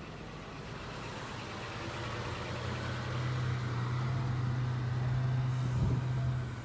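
A road vehicle's engine: a steady low hum with traffic noise that grows louder over several seconds and eases off near the end.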